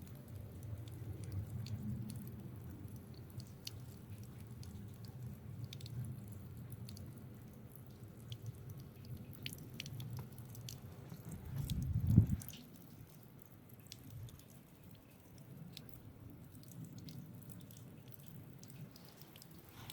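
Footsteps crunching and squeaking in snow, with scattered small crisp clicks over a low rumble. A brief louder low thump comes about twelve seconds in.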